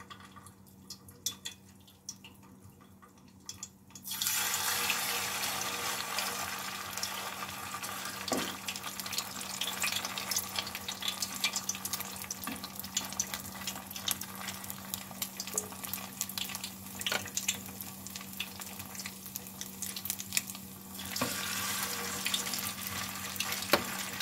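Patties of chicken kuku mixture (shredded chicken, grated potato and egg) frying in hot oil in a nonstick pan: a steady sizzle that starts about four seconds in, as more mixture goes into the oil, with occasional light clicks of a plastic spoon against the pan.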